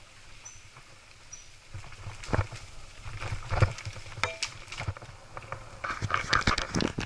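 Mountain bike riding a rough dirt trail: irregular knocks and rattles as the bike jolts over bumps, over a low rumble. It starts fairly quiet and grows busier from about two seconds in, clattering most near the end.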